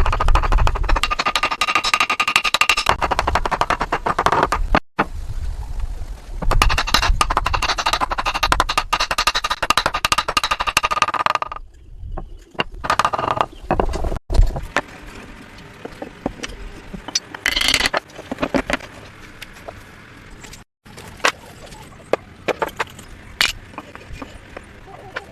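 Hand tools working wood: two runs of rapid rasping strokes with a ringing tone, then scattered light taps and ticks.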